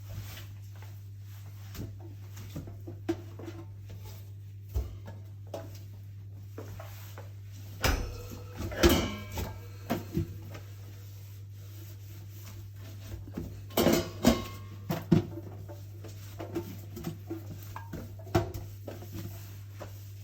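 Dishes and utensils clattering and clinking as they are handled, with scattered light knocks and two louder bursts of clatter, about eight and fourteen seconds in, some of them ringing briefly. A steady low hum runs underneath.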